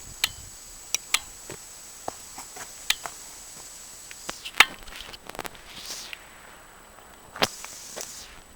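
Irregular sharp clicks and knocks, about a dozen spread unevenly, the loudest about four and a half and seven and a half seconds in, over a faint steady hiss.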